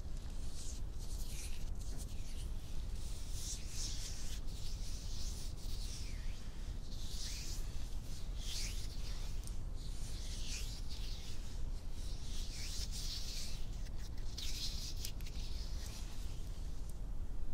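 Bare hands rubbing skin on skin close to the microphone, a steady series of soft swishing strokes about once a second.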